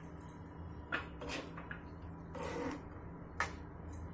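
A spoon stirring thick mashed elephant foot yam in a non-stick frying pan: a few soft, short scrapes and taps spread over the few seconds, over a faint low hum.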